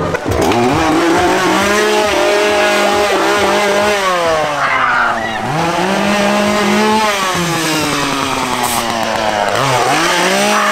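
Small two-stroke chainsaw engine revved again and again, its pitch climbing, holding, then dropping every couple of seconds.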